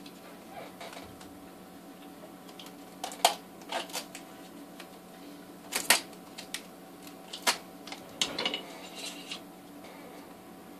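Scattered sharp clicks and scrapes of a snap-off craft knife and fingers working at a wrapped plastic container, cutting and picking at its tape and wrapping. Under them runs a steady low hum.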